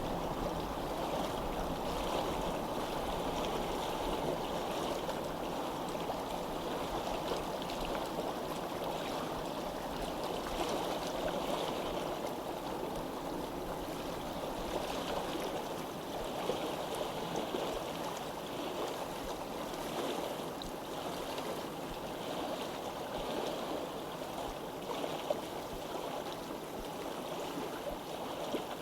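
Water flowing steadily, a continuous even rushing.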